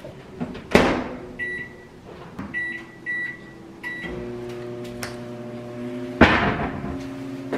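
Microwave oven being set and started: a sharp knock, a few short keypad beeps, then the oven runs with a steady hum from about four seconds in. A second loud knock comes over the hum about six seconds in.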